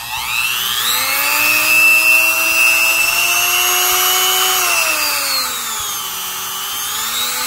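AFABEITA 260 W corded rotary tool (mini die grinder) running with no bit in the chuck. Its motor whine rises in pitch as the speed is turned up in the first second, holds high, drops back to a lower speed about five seconds in, then climbs again near the end.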